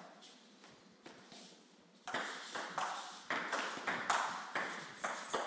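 Table tennis rally: the ball clicking off paddles and the table, a few scattered hits, then a fast rally from about two seconds in at roughly four hits a second.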